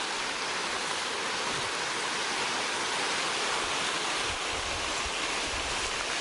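Steady rush of a mountain stream's flowing water, with a low rumble on the microphone over the last two seconds.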